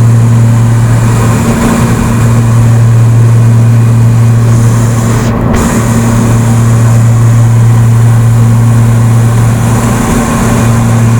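Airplane cabin noise: a loud, steady, low engine drone with hiss above it, unchanging in pitch.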